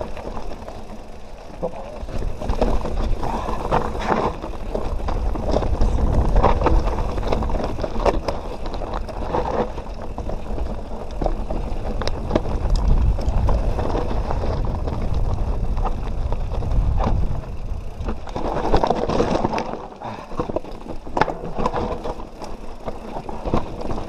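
Canyon Nerve mountain bike riding over a rocky trail: tyres and frame clattering over rocks with many sharp knocks, under a constant low rumble. The rumble eases for a moment about twenty seconds in.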